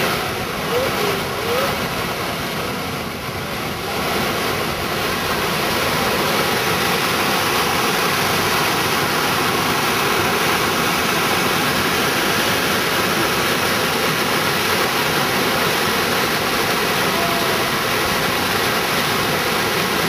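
Large waterfall, a steady rush of falling and churning water. It grows a little fuller a few seconds in.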